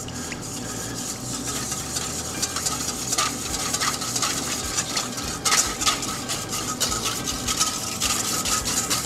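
Wire balloon whisk beating lemon juice, Dijon mustard and honey in a stainless steel mixing bowl: rapid, continuous clicking and scraping of the wires against the metal bowl. The dressing base is being blended before any oil goes in.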